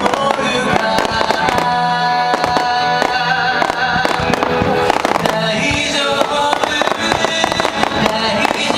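Music playing with fireworks bursting over it: a run of sharp bangs and crackles throughout.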